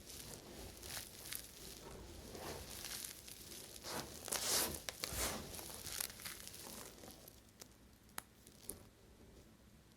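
Knife cutting and scraping dry bar soap: a run of crisp, crumbly scraping strokes, the loudest near the middle, then quieter with a few sharp clicks toward the end.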